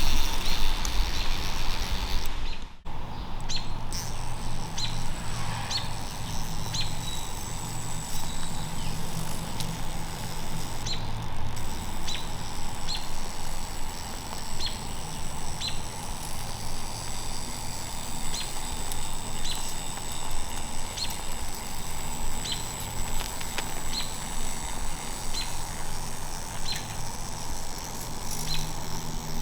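Outdoor ambience with a small bird chirping over and over, short high chirps about once a second, over a low steady hum. The sound drops out abruptly about three seconds in, at an edit, then the chirping carries on.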